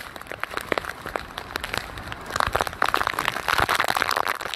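Hurricane wind driving heavy rain, heard as a dense crackling hiss with gusts rumbling on the microphone. It grows louder about halfway through.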